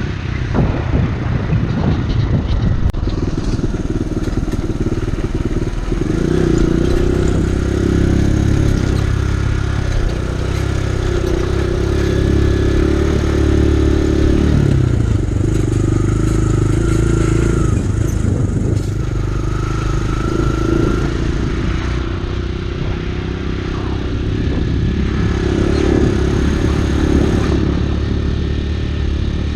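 Kawasaki KLX150 dirtbike's single-cylinder four-stroke engine running under way, its note rising and falling several times as the throttle opens and closes.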